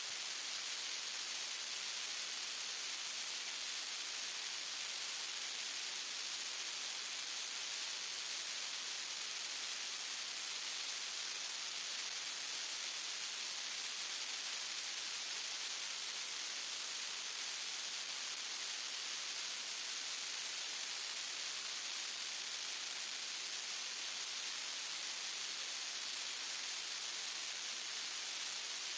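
Steady high-pitched hiss like static, unchanging, with no motor tone or impacts in it.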